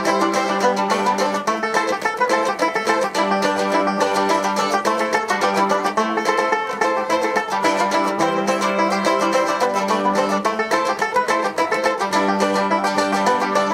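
Live band playing an instrumental passage of fast, continuous picked notes on plucked string instruments.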